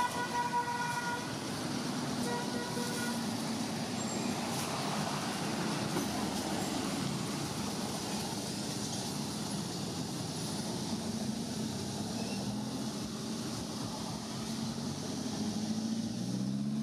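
Steady road traffic with vehicle engines running. A vehicle horn sounds twice in the first few seconds, a longer toot and then a short one. Near the end an engine rises in pitch.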